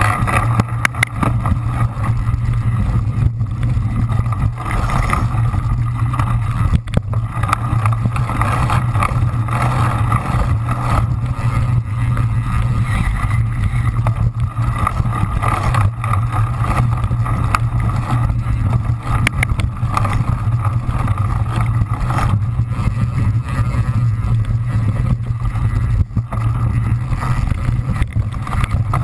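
Riding noise from an action camera mounted on a cyclocross bike racing over dirt and sand. Wind on the microphone and tyre and frame noise make a steady low noise, broken by frequent small knocks from bumps.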